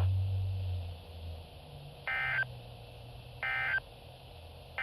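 NOAA Weather Radio SAME digital data bursts: three short, identical bursts of warbling data tones about a second and a half apart, the third starting at the very end. As short bursts right after the test's closing words, they are the end-of-message code closing the Required Weekly Test. A low hum fades away during the first second.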